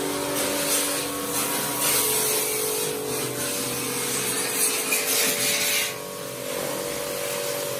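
Electric pressure washer running, its jet spraying water through a thin hose onto a room air conditioner's plastic grille and louver panels: a steady hiss over a steady motor hum. The hiss lessens about six seconds in.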